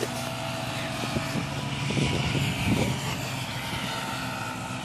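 A small engine running with a steady hum, with some brushing and rustling about two seconds in.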